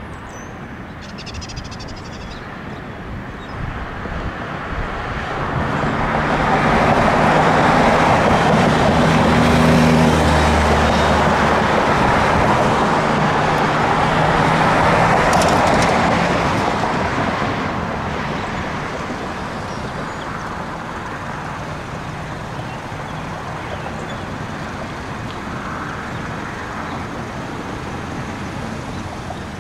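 Street traffic at an intersection: a motor vehicle's engine hum and tyre noise build from about five seconds in, stay loud for about ten seconds as it passes close by, then fade back to a steady hum of traffic.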